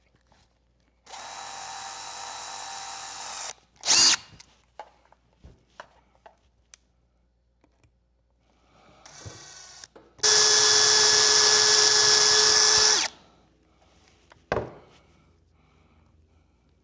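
Power drill boring a small rivet hole in a motorcycle exhaust. It runs for about two and a half seconds, then a sharp clack follows. After a brief soft start, it runs again at full speed for about three seconds with a steady whine.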